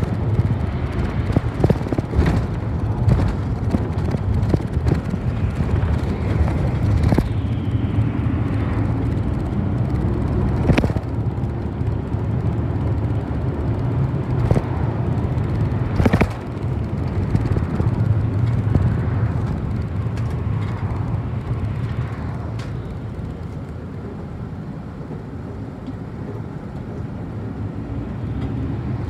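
Steady low engine and road rumble heard from inside a moving city bus, with a few sharp knocks from the bus body, the clearest a little over ten seconds in and about sixteen seconds in.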